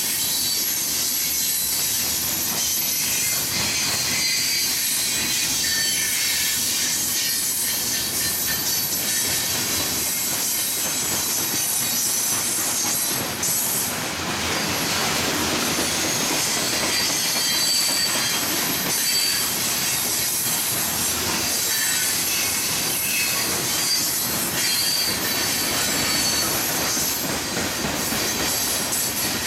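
Freight train steel wheels squealing against the rails, a steady high-pitched squeal of several tones held over the rumble and clatter of slowly rolling cars and locomotives.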